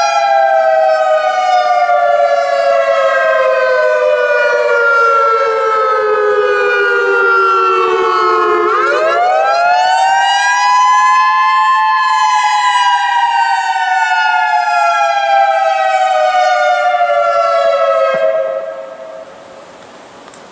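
Federal Signal EOWS 612 electronic outdoor warning siren sounding a loud wail, the attack signal. Its pitch falls slowly, sweeps back up quickly about nine seconds in, falls again, and cuts off near the end.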